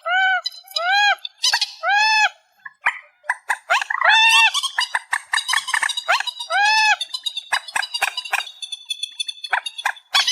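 Trích ré birds calling, amplified: a run of loud, arched notes that rise and fall in pitch, about two a second, then a chattering jumble of harsh clicks and squeaks. A few more arched notes break in around four and seven seconds.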